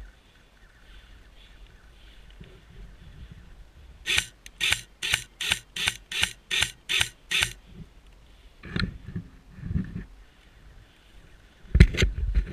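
Airsoft rifle firing about ten single shots in quick succession, roughly three a second, each short and sharp. A few low knocks follow, and a loud thump comes near the end.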